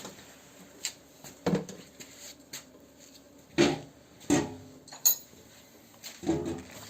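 Irregular metallic clinks and knocks of hand tools working the windscreen wiper linkage, about seven sharp strikes, some with a brief ring.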